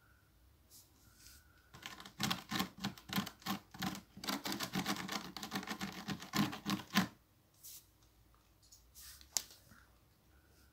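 A rapid run of scratching clicks, about five a second, lasting about five seconds, then a few faint single clicks.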